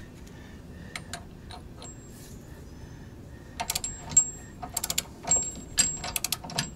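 Socket ratchet wrench clicking in quick runs as it is swung back and forth, tightening the bolts on a weight distribution hitch head, with a light metallic ring. A couple of single clicks come about a second in, before the runs start.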